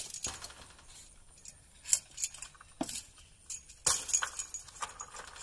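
Irregular sharp clicks and clinks of small hard objects, with louder knocks about two and four seconds in and a brief ring after one knock near the middle.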